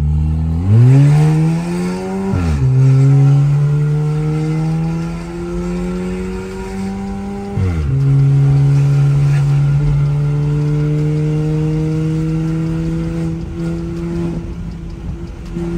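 Volkswagen Jetta's turbocharged engine with a straight-pipe exhaust accelerating hard, heard from inside the cabin. The engine note climbs steadily in pitch and drops sharply at two automatic upshifts, about two and a half and eight seconds in. It then climbs more slowly in the next gear until the throttle eases off near the end.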